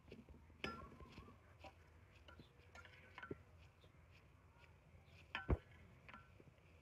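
Faint clinks and scrapes of a metal spatula against a steel pot as cooked rice is stirred and lifted, with a sharper metallic knock about five and a half seconds in.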